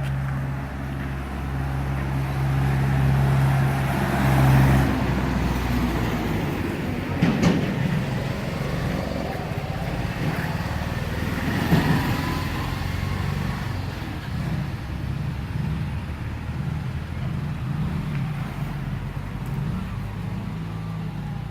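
Road traffic noise: a vehicle engine runs steadily for the first few seconds and then fades into general traffic noise. Two sharp knocks stand out, about 7 and 12 seconds in.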